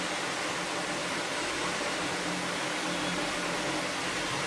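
Steady, even hiss with a faint low hum underneath, a continuous background noise like a running fan.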